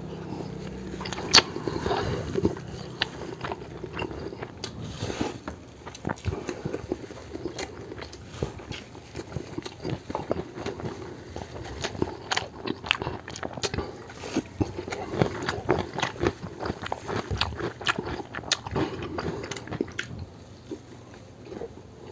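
Close-miked eating: a person biting and chewing food, with many quick irregular mouth clicks and crunches.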